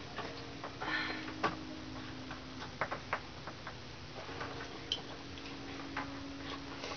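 Scattered soft clicks and taps at irregular times, with a brief hiss about a second in, over a steady low hum.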